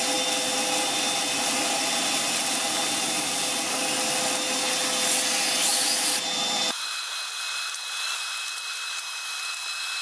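Parkside PWDA 20-Li A2 cordless wet/dry vacuum running, its motor whine mixed with the gritty hiss of damp sand and small stones being sucked up the nozzle. About two-thirds through, the sound cuts abruptly to a thinner, higher-pitched vacuum motor note with little low end.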